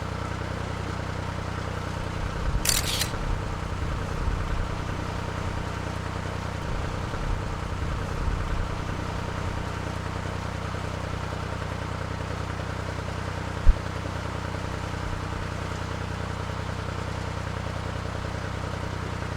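Narrowboat engine running steadily, with wind buffeting the microphone now and then. A short hiss comes about three seconds in and a single low knock later on.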